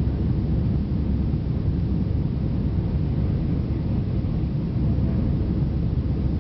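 Steady low rumble of an airliner's jet engines and rushing air, heard inside the passenger cabin during the climb shortly after takeoff.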